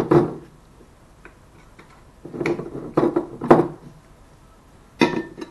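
Kitchen handling noises: sharp knocks and clinks of a glass olive-oil bottle and a frying pan against the worktop. One knock comes at the start, three close together in the middle, and another near the end.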